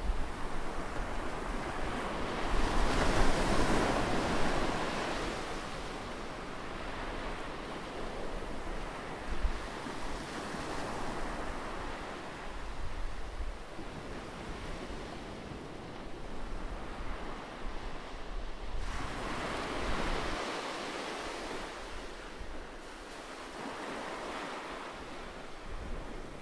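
A steady rushing noise that swells and fades, loudest about three seconds in and again about twenty seconds in.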